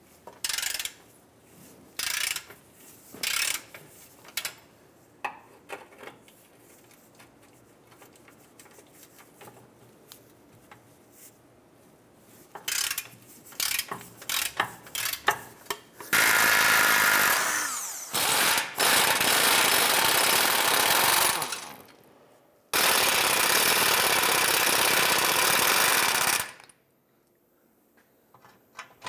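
Hand socket ratchet clicking with scattered knocks as rusty 14 mm cross-brace bolts are broken loose, then a pneumatic air ratchet running in two long steady stretches of several seconds, spinning the loosened bolts out.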